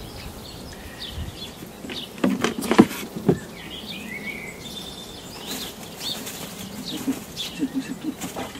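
Handling noises at a wooden, wire-fronted rabbit hutch: a cluster of knocks and rattles about two to three seconds in, with rustling around it. Small birds chirp now and then in the background.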